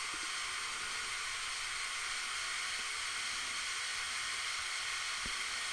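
Steady, unchanging whir with a hissy high end from the Mould King LTM 11200 crane's electric motors, running as the telescopic boom is driven out.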